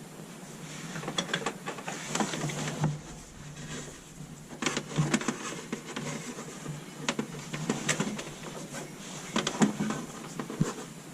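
Hand-handling noise of fishing string and wire through the switch hole in an RV wall panel: irregular scraping, rustling and small clicks, with a sharp knock near the end.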